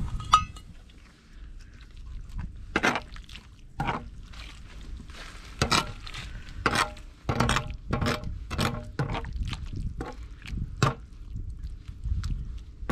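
A ladle stirring ramen noodles and rice through boiling broth in a cast-iron cauldron (gamasot): sloshing liquid with a dozen or so irregular knocks and clinks of the ladle against the pot.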